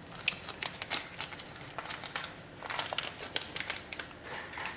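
Irregular small clicks and crinkly rustling from objects being handled at a soldering bench, coming in a few short spells.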